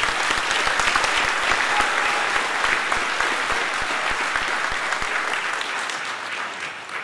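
Audience applauding, many hands clapping at once; the applause dies away near the end.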